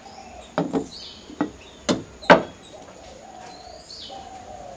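Clay cookware and a kettle knocking as they are handled and set down on a wooden table: five sharp clatters in the first half, the last the loudest. Birds chirp in the background.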